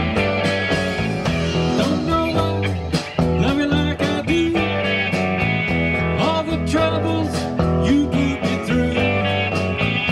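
Live blues-rock band playing an instrumental passage: an electric guitar lead with bent notes over bass guitar and a steady drum-kit beat.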